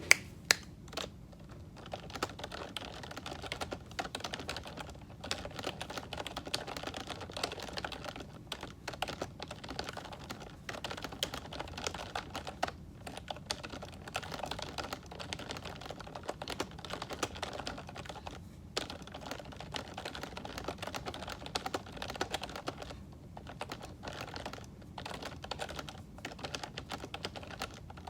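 Fast continuous typing on a membrane keyboard whose keys were lubricated with canola oil: a dense run of soft key presses with a few brief pauses, opening with a couple of sharp, louder clicks.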